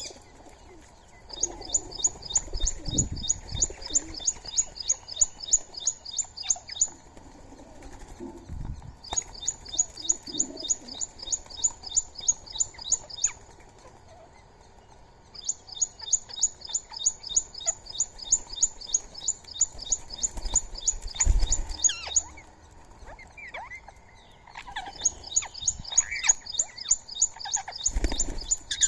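Indian palm squirrel giving its repeated high chip call, about four evenly spaced chirps a second, in long bouts of several seconds broken by short pauses. A few short low thuds and scattered lower bird calls fall between the bouts.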